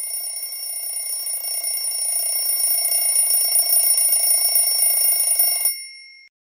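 A bell ringing continuously with a fast rattle and several steady high tones, growing louder. It is cut off suddenly near the end, and its tone rings on for a moment.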